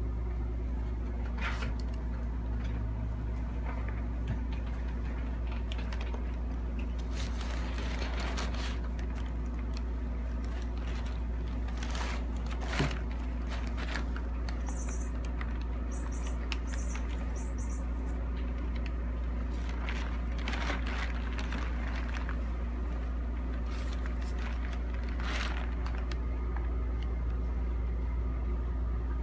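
Brown kraft packing paper rustling and crinkling in short bursts as a cat shifts about inside a cardboard box, over a steady low hum, with one sharp click about halfway through.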